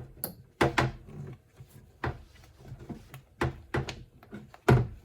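Irregular knocks, clicks and rubbing of rubber and plastic as a wiring grommet and its cable are pushed and pulled through a car door. There are about seven separate knocks, the loudest near the end.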